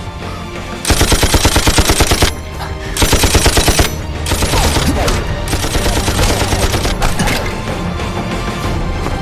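Machine-gun fire in two rapid bursts, about ten shots a second, the first about a second in and the second about three seconds in, followed by dense continuous gunfire. Dramatic film music runs underneath.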